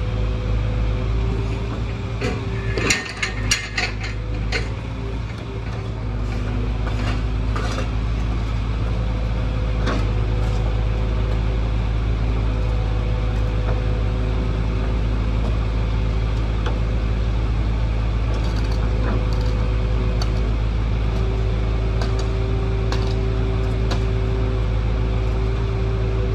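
Excavator's diesel engine running steadily: a low drone with a steady higher hum above it, and a burst of metallic clatter and clicks about three seconds in.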